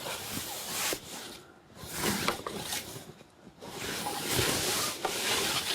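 Canvas roof cover of a camping yurt swishing and rustling as it is pulled over the roof poles, in several rough spells with short pauses between.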